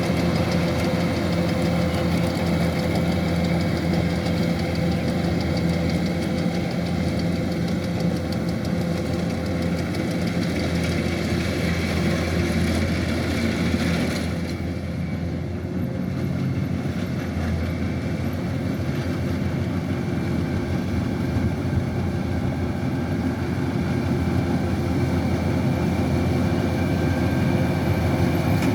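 Kubota DC-105X combine harvester running steadily as it harvests rice, a constant engine and machinery drone. About halfway through, the higher mechanical noise drops away for a few seconds, then returns.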